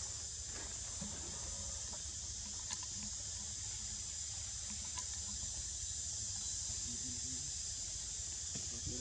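Insects buzzing steadily in a high pitch over a low rumble, with a couple of faint ticks.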